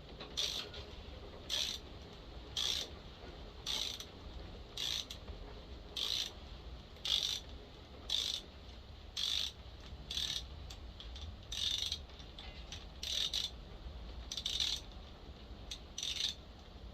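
A ratchet wrench turning a spark plug thread-repair tap into a chainsaw cylinder, cutting the threads for an insert. A short burst of ratchet clicks sounds on each back-swing, about once a second.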